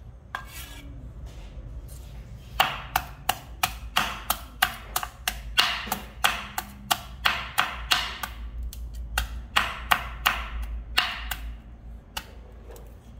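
Knife chopping noni fruit on a cutting board: a run of sharp, regular strikes at about three a second, starting about two and a half seconds in and stopping shortly before the end.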